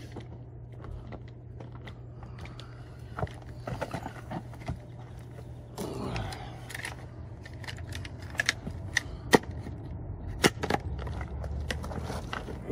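Footsteps crunching on loose gravel, then a person kneeling down on it, followed by several sharp clicks and knocks of a hand trowel and metal tool being handled and set down on the gravel. A steady low hum runs underneath.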